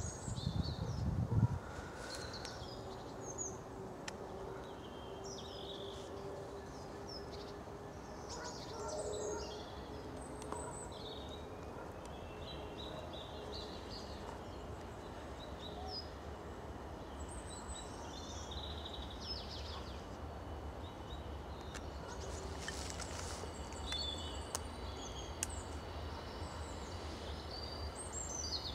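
Small birds chirping and singing over the low, steady rumble of a distant Class 66 diesel locomotive's two-stroke V12 engine as it approaches slowly. There is a brief low thump about a second in, and a faint whine rises and then holds in the middle.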